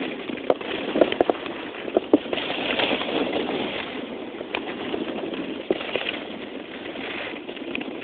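Skis sliding and scraping over snow during a downhill run, a steady hiss that swells twice as the skier turns, with scattered small knocks.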